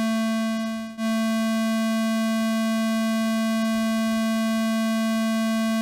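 Modular synthesizer tone through a VCA opened by a cycling Make Noise Maths envelope: a steady, buzzy pitched note fades away about a second in and snaps back, then holds steady through a long, slow envelope cycle.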